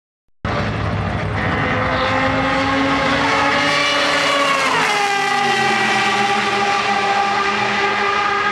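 Matra MS670's 3-litre V12 racing engine running hard after a brief silent gap. Its pitch climbs steadily for a few seconds, falls sharply about five seconds in, then holds steady.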